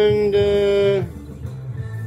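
Background music: a long held melodic note over a steady bass line, the note cutting off about a second in while the bass carries on.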